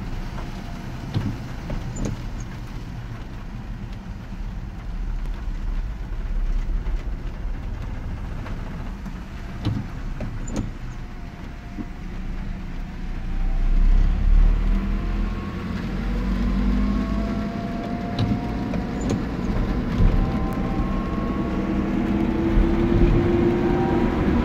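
Car driving on a wet road, heard from inside the cabin: a steady low rumble of engine and tyres, with faint pairs of clicks about every eight seconds. Over the last ten seconds or so the engine note rises as the car speeds up.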